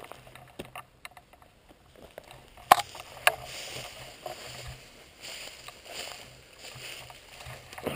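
Handling noise from a shotgun with a camera mounted on its barrel as the gun is raised: two sharp knocks about half a second apart, then soft rustling and scraping of the gun being moved.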